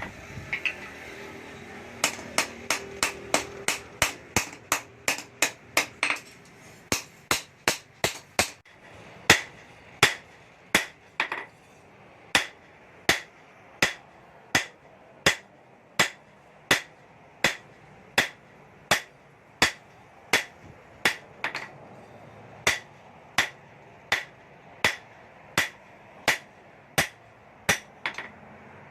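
Blacksmith's hammer striking hot steel on an anvil while forging a knife blade. The blows come in a steady rhythm of a little over one a second, each with a short metallic ring. A quicker run of lighter blows comes a few seconds in, and another around the eighth second.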